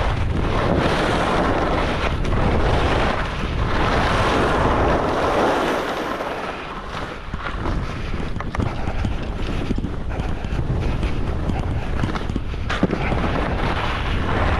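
Wind rushing over a GoPro Hero 12's microphone while skiing downhill at speed, rising and falling in strength.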